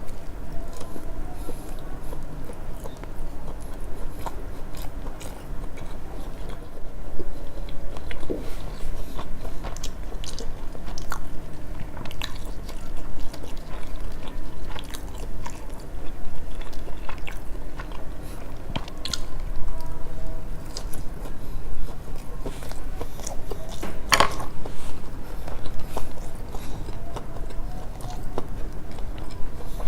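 Close-miked chewing and biting of sushi: wet mouth sounds with frequent small clicks and smacks, and one louder click late on.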